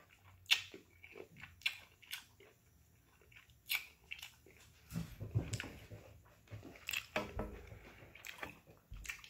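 Close-up chewing of a person eating corn on the cob, with irregular wet mouth clicks and lip smacks.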